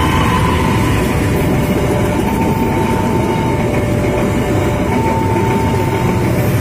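A train passing over a railway level crossing: a loud, steady rumble of wheels on the rails, with thin high steady tones above it that come and go.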